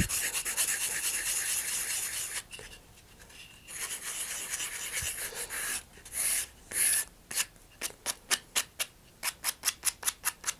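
Sandpaper on a sanding block rubbing the cut end of a small launch-lug tube, cleaning off the burr from the cut. Long steady rubbing at first, a short pause about two and a half seconds in, then quick short back-and-forth strokes, about four a second, from about seven seconds in.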